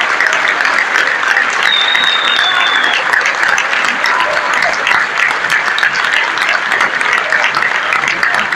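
Audience applauding steadily, with a brief high thin tone over it about two seconds in.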